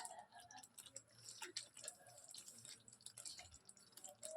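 Near silence, with faint scattered ticks and soft pops from a pan of onion-yogurt gravy.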